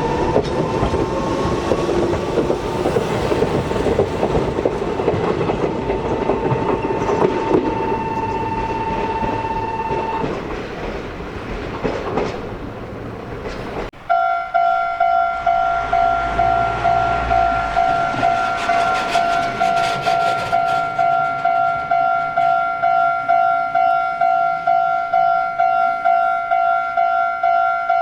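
A Meitetsu train passing over a level crossing with wheel rumble and clatter while the crossing's warning bell rings; the bell stops about ten seconds in and the train noise fades. After a sudden cut about halfway through, another level crossing's warning bell rings in a steady, even rhythm of strikes.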